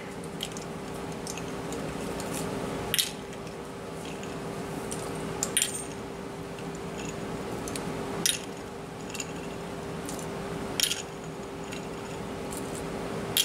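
A plastic measuring spoon clicks against the water cup and the bowl as cold water is added, a tablespoon at a time, to a pie-crust flour and butter mix. The sharp clicks come about every two and a half seconds over a steady hum.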